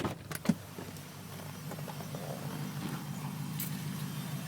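Nissan Armada 5.6L V8 engine running steadily with a buzz from the front of the engine, getting louder from about a second in. Mechanics have traced the buzz with a stethoscope to behind the oil filter; the owner is unsure whether it is tied to the truck's low oil pressure. Two light clicks at the start.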